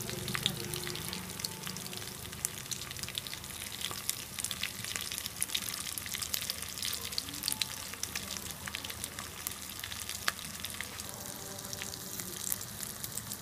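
Rava-coated fish slice shallow-frying in hot oil in a blackened kadai: a steady sizzle with many small sharp pops and crackles.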